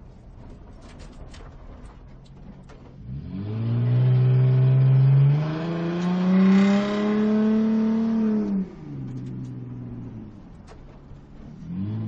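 Sports car engine idling low, then revving hard for about five seconds, its pitch rising and climbing further before it drops suddenly back to idle; a short rev blip near the end.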